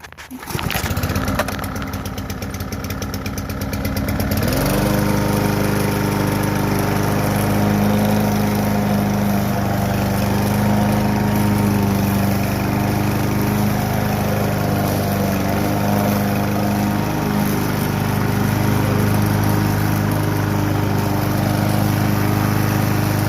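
Kohler Courage XT-7 push-mower engine pull-started on one hand, catching straight away. It runs a few seconds at a lower speed, then picks up to a steady running speed about four seconds in and holds there, running smoothly on its new deck.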